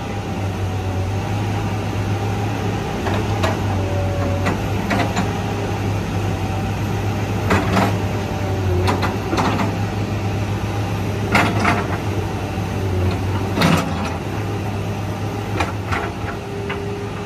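A heavy-machinery engine running steadily with a low, even hum, with scattered sharp knocks and clanks every second or two.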